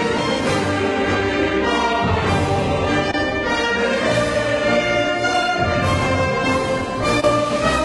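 Orchestral soundtrack music with brass instruments prominent.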